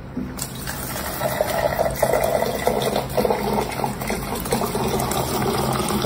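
Electrolux countertop water purifier dispensing a stream of water into a plastic cup, starting just after a cat presses its button, over a low steady hum. The pour rises in pitch as the cup fills.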